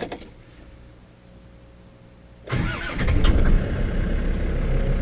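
Land Rover Defender TD5's five-cylinder turbodiesel started by the starter motor about two and a half seconds in, catching quickly and settling into a steady idle, with its power steering pump, auxiliary belt and tensioner freshly fitted. A faint steady hum comes before the start.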